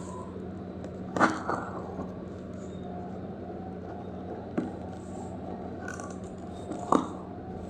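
Hands handling a package being unboxed: three sharp clicks or knocks, a few seconds apart, over a steady low hum.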